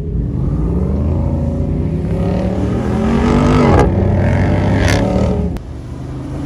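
Jeep Wrangler 392's 6.4-litre HEMI V8 revving hard under throttle in sand, its pitch climbing for a couple of seconds to a loud peak. The sound breaks off sharply about four seconds in and again near the end, each time dropping to a quieter engine note.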